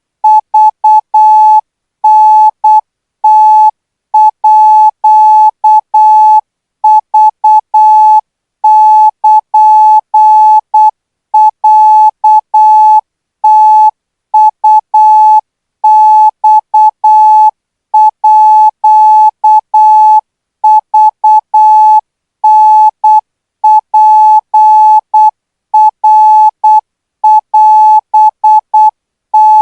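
Morse code practice signal: a single steady beep tone keyed on and off in short and long elements, grouped into characters with gaps between them, sent at about 12 words per minute for learning Thai Morse code.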